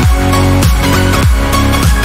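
Electronic dance music with a heavy, deep kick drum hitting about every 0.6 seconds over a sustained synth bed.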